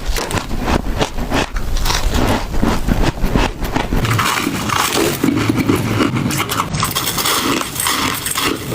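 Crisp crunching of frozen freezer frost being bitten and chewed, a rapid run of sharp cracks. About four seconds in it changes to a continuous rough scraping of ice.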